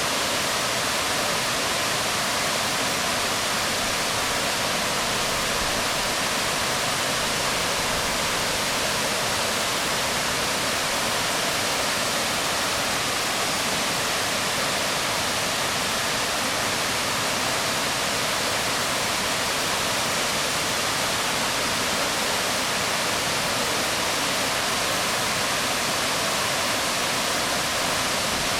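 Waterfall crashing onto rocks: a steady, unbroken rush of water, hissy and strongest in the upper range.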